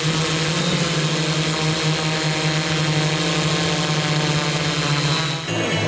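ECILOP-3 multirotor drone's electric motors and propellers humming at a steady pitch. About five and a half seconds in it cuts to a slightly lower hum.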